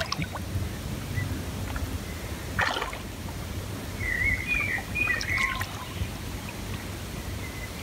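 Water trickling and lapping over a steady low wind rumble, with a brief splash about three seconds in and a few short high chirps a little past the middle.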